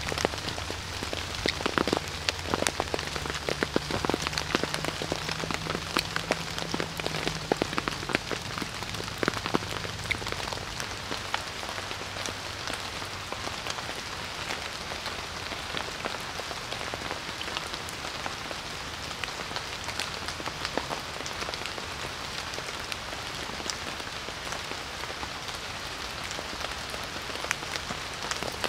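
Steady rain falling on a tarp shelter and the forest around it, with many separate drops tapping close by.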